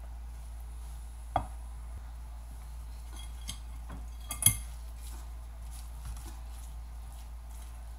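A spatula scraping grated pulp out of a stainless steel pot and knocking against the pot rim and a mesh strainer: a few sharp clinks and knocks, the loudest about a second and a half in and just past halfway, over a steady low hum.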